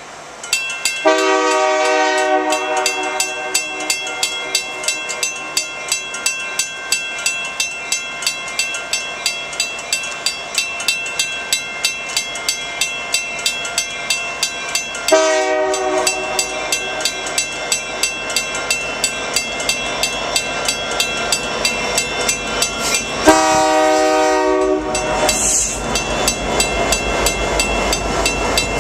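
Union Pacific freight locomotive horn blowing three blasts, one about a second in, a shorter one about halfway, and a long one near the end, over a bell ringing steadily about two strokes a second. The locomotives' engines rumble louder as they pass near the end.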